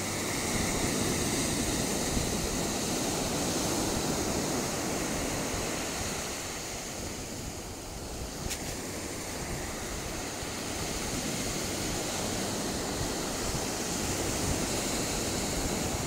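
Ocean surf washing onto a beach: a steady rush of wave noise that dips a little in level about halfway through.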